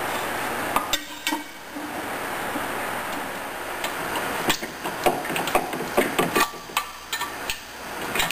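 Steel screwdrivers clicking and knocking against the metal gear cases as they are levered in the joint to pry the OMC Cobra lower unit away from the upper gear case. A couple of clicks come about a second in, then a quick run of sharp clicks from about halfway, over a steady hiss.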